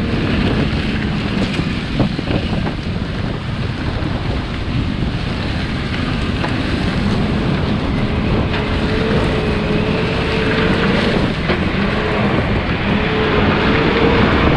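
Vehicle hauling a load of grain on the road, with a steady rumble and wind buffeting the microphone. A faint steady engine hum shows through in the second half.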